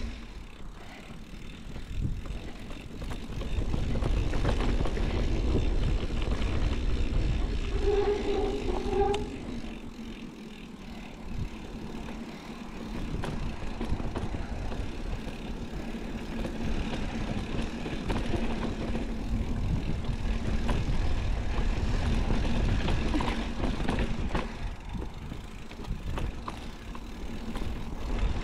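Mountain bike riding down dirt singletrack: wind rumbling on the handlebar camera's microphone over the crunch of tyres on the trail, with frequent small rattles and knocks as the bike goes over bumps.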